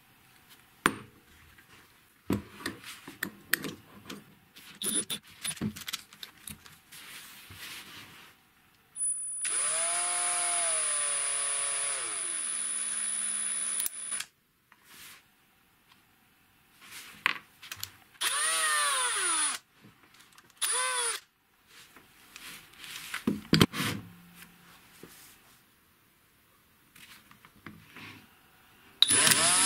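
Metal parts clicking and clinking as a homemade bolt-and-blade attachment is handled. Then an electric drill runs in bursts: one of about five seconds whose pitch rises and sags, two short ones, and a new start near the end.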